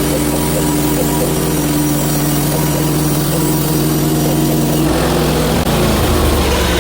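Portable bandsaw sawmill's engine running steadily while the mill rips boards from a hemlock log; the engine's sound changes about five seconds in.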